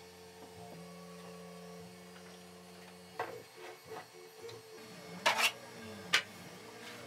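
A 3D-printed plastic model airplane being handled on a workbench: a few sharp clicks and knocks as the light plastic airframe is picked up and set down, the loudest a little after the middle. Under them runs a steady hum that, about two thirds of the way through, gives way to a whine that rises and falls over and over.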